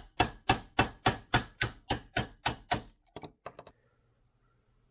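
Hammer tapping on a socket to drive the inner seal pack out of a Suzuki DRZ400 water pump housing: about a dozen sharp, evenly spaced taps, roughly four a second. A few lighter taps follow before they stop.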